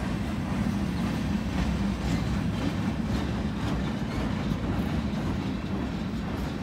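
Freight cars (an empty centerbeam flatcar and tank cars) rolling past: a steady rumble of steel wheels on rail with faint irregular clicks.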